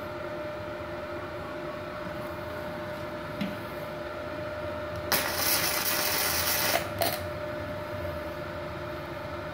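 Gasless flux-core MIG weld on thin 1 mm steel hollow tube from a MultiPro MIG-MMA/TIG 160 AS-MZ inverter welder: a loud crackling hiss of the arc lasting under two seconds about halfway through, over the machine's steady hum. The welder, at 36 A, judges the current still too high for the thin steel.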